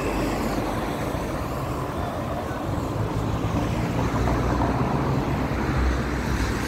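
Road traffic noise from cars driving along a busy avenue: a steady rush of tyres and engines, with a low engine hum that grows stronger in the second half.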